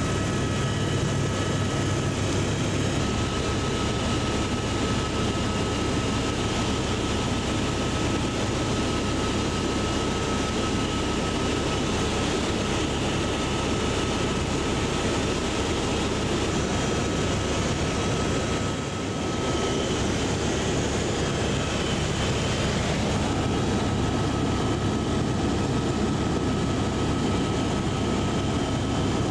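Steady cabin noise of a Eurocopter AS350 helicopter in cruise: rotor and Turbomeca Arriel turbine, heard from inside the cabin. A thin steady high whine rides on top and fades out about two-thirds of the way through.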